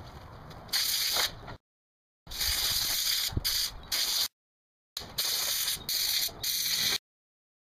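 Compressed-air tool on an air hose blowing off in bursts of loud, high-pitched hiss, stopping and starting three times with dead silent gaps between.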